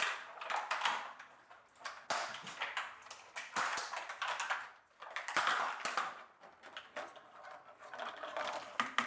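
Eggs being whisked in a bowl: the whisk or fork clicks rapidly against the bowl in several spells of about a second each, with short pauses between them.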